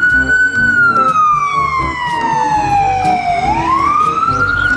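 Ambulance siren wailing: its pitch slides slowly down for about three seconds, then climbs quickly back up near the end.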